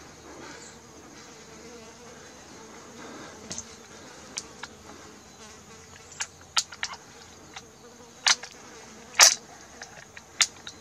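Steady high-pitched insect drone in the bush, broken by a scattered series of sharp clicks and taps, the loudest about nine seconds in.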